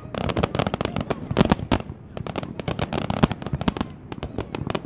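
Aerial fireworks going off: many sharp bangs and pops in quick succession, in clusters, easing off briefly twice.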